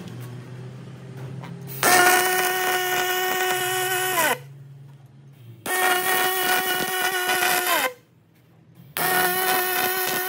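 Aluminium welding arc, struck three times in bursts of about two seconds each, with a steady buzzing pitch over a crackly hiss. The pitch drops as the first two bursts stop, and a low machine hum fills the gaps between them.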